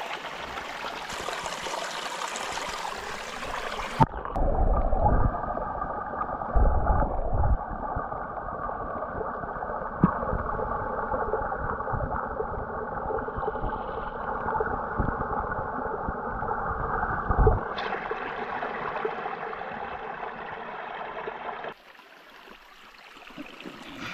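Rushing stream water, which turns suddenly muffled and gurgling about four seconds in, as if heard from under the water, with low knocks and bumps. It opens up again after about seventeen seconds and grows quieter near the end.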